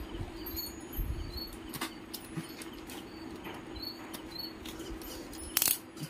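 Utility knife slitting and tearing the plastic shrink-wrap seal on a hard disk's cardboard box: scattered light scrapes and clicks, with one louder, sharper rip near the end, over a steady low hum.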